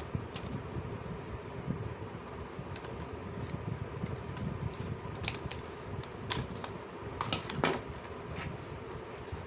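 Scissors snipping through a clear plastic blister pack, with scattered sharp clicks and crackles of the stiff plastic as it is cut and then pried open by hand, over a steady low hum.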